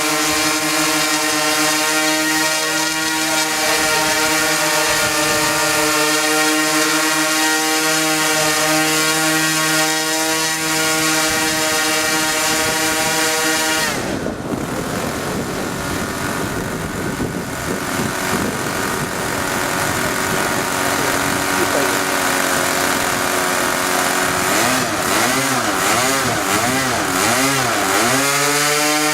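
Two OS 46 two-stroke nitro glow engines on a twin-engine radio-control model plane, running at high revs with a steady, buzzing whine. About halfway the note drops suddenly and turns rougher. Later the pitch swings up and down several times before steadying again near the end.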